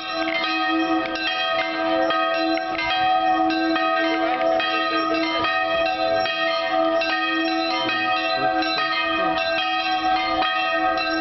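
Church bells ringing: several bells of different pitches struck over and over in a quick, irregular pattern, their tones ringing on and overlapping.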